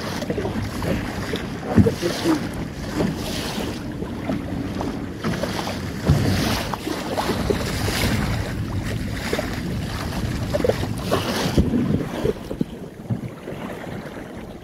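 Wind buffeting the microphone and water rushing and splashing along the hull of a small Magnum 422 sailing dinghy under way in choppy sea, in repeated surges with a few low knocks, easing off near the end.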